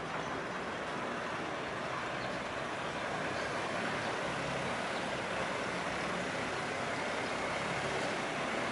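Long-tail canal boat's engine running as the boat turns and comes alongside, growing a little louder as it nears.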